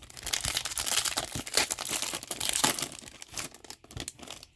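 Wrapper of a 2021-22 Upper Deck AHL hockey card pack being torn open and crinkled by hand, a dense crackle that fades out near the end.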